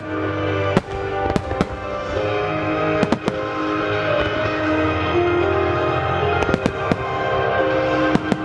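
Aerial firework shells bursting in a string of sharp bangs, several in quick pairs and triplets, over steady music playing throughout.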